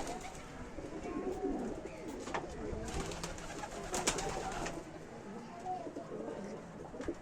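Several domestic pigeons cooing in overlapping low, rolling calls, with a few sharp clicks a couple of seconds in.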